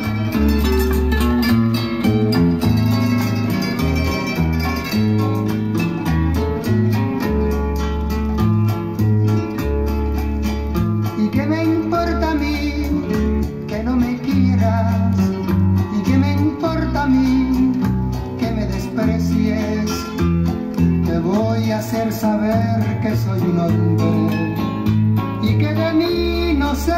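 A vinyl record played on a Sony PS-LX310BT turntable and streamed over Bluetooth to a JBL Charge 5 portable speaker: a guitar-led song with strong repeated bass notes. A singing voice joins about eleven seconds in.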